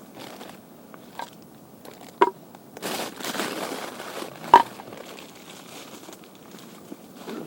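Plastic wrapper crinkling and rustling as it is handled, loudest for a second or so around the middle, with two sharp knocks about two and four and a half seconds in.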